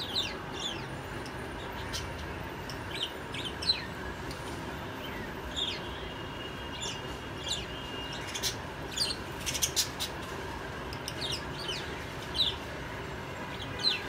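Caged pet parakeets chirping: short, sharp, downward-sliding chirps at irregular intervals, with a quick flurry of them about two-thirds of the way through, over a steady low background noise.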